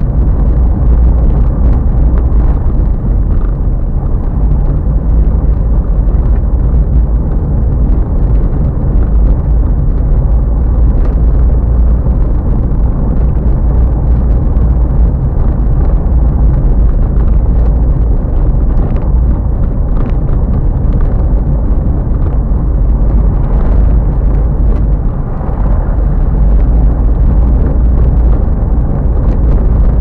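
Car driving over cobblestones, heard from inside the cabin: a loud, steady low rumble of tyres on the stones and the engine, with a few brief knocks.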